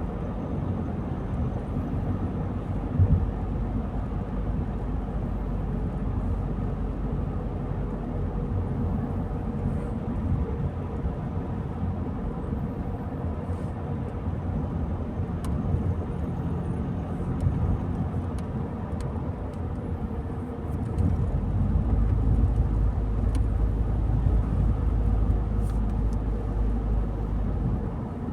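A car driving along, with steady engine and tyre rumble. The low rumble grows louder about three quarters of the way through and eases just before the end.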